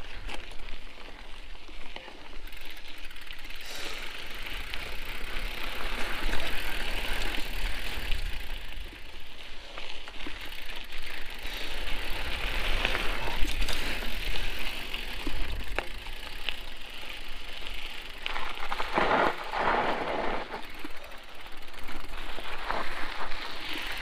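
Mountain bike tyres crunching steadily over a dry dirt and gravel trail, with scattered clicks and rattles as the bike rolls over small rocks.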